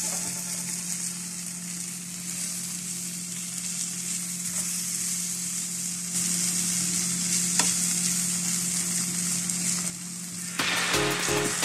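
Eggs and diced bitter gourd sizzling in oil in a frying pan as a wooden spatula stirs through them. One short click about seven and a half seconds in, and music comes in near the end.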